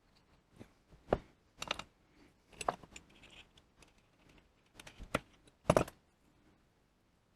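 Small metal lathe parts and hand tools clinking and knocking on a workbench as an apron is put back together: a dozen or so irregular sharp clicks, the loudest pair of knocks a little past five seconds in.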